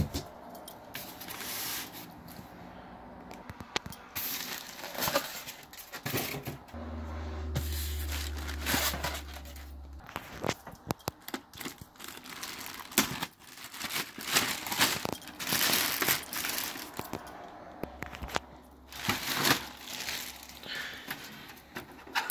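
Plastic wrapping and packing material crinkling and rustling, with scattered knocks and some tearing, as a boxed laser printer is unpacked. A low hum comes in twice for a few seconds.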